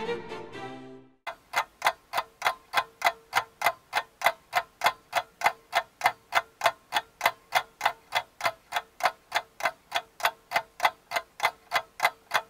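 Steady clock ticking, about three to four even ticks a second, with a faint steady tone underneath. A music bed ends about a second in, just before the ticking starts.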